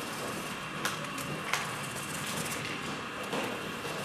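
HO-scale model trains running on the layout: a steady whir and hiss, with two sharp clicks about a second and a second and a half in.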